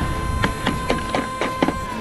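A quick run of about seven sharp plastic clicks and clacks as tools are handled in an open plastic tackle box, with wind buffeting the microphone.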